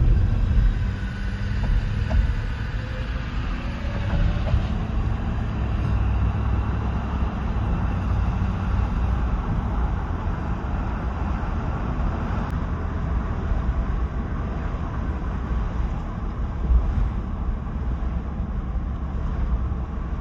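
Steady low rumble of a car running, engine and road noise with no distinct events.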